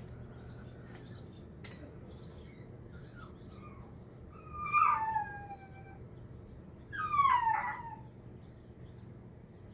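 Two drawn-out animal calls, each about a second long and falling in pitch, the second coming about two seconds after the first.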